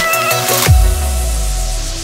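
Electronic background music with a heavy beat and bass notes that slide down in pitch. The drums stop under a second in, leaving a held low note.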